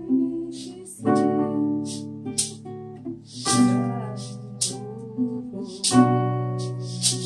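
Acoustic guitar and piano playing together, sustained chords changing every two to three seconds, with short bright hits keeping a rhythm above them.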